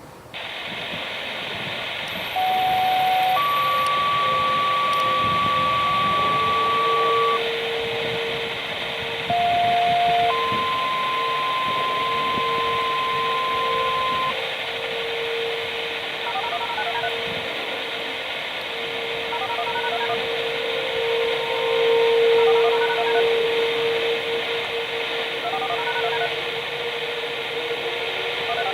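Radio scanner hissing with static as dispatch sends two-tone sequential siren activation tones: a short lower tone followed by a long higher tone, twice. About six seconds in, distant outdoor warning sirens wind up and hold a steady alert tone under the radio.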